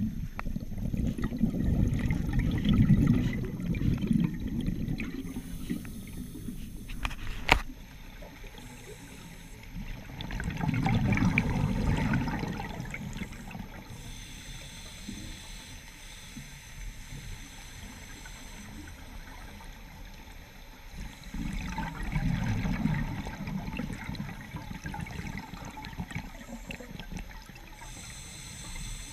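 A scuba diver's regulator breathing, heard underwater: three bursts of exhaled bubbles about ten seconds apart, with a quieter hiss between them. One sharp click about seven and a half seconds in.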